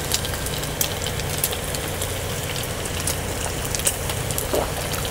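Pork belly sizzling on a pan over a portable gas burner, with scattered crackles and pops over a steady low hum.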